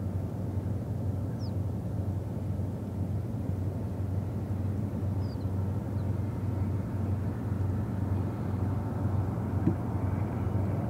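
Diesel locomotives of an approaching Union Pacific freight train heard from a distance: a steady low engine rumble that grows a little louder near the end.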